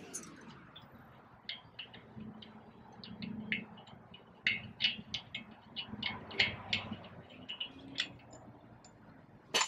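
Irregular light clicks and taps of metal hand tools working at the front wheel hub's axle nut, with one sharper click near the end.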